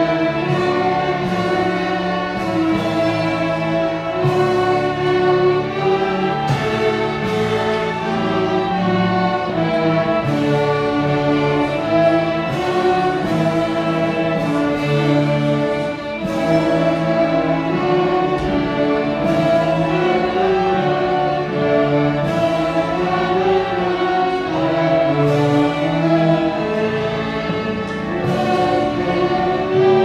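A children's string orchestra of violins and cellos playing a piece in steady, sustained bowed notes.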